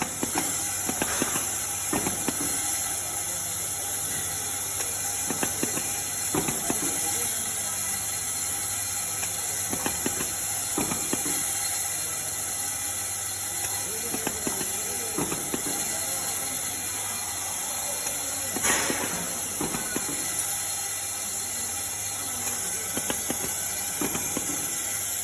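Automatic nut welding machine with a rotary table running: a steady hiss and low hum, broken by irregular short clicks and clunks of the welding and indexing cycle.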